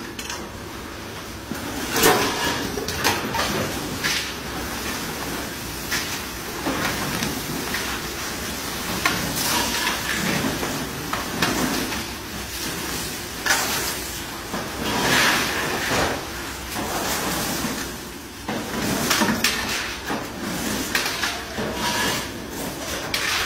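Long metal spatulas scrape and clatter against giant frying woks as kerupuk crackers are stirred and tossed in hot oil. The strokes come irregularly, over a steady sizzle of frying.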